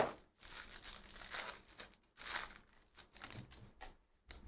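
Foil wrapper of a Bowman Chrome trading-card pack being torn open and crinkled, in short irregular bursts of rustling and tearing, the loudest a little over two seconds in.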